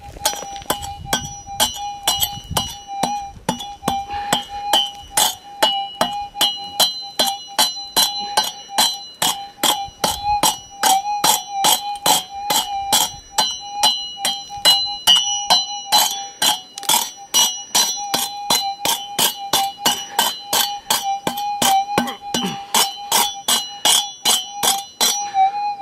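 Steel prospecting pick striking hard bedrock again and again, about two ringing strikes a second, over a metal detector's steady threshold tone.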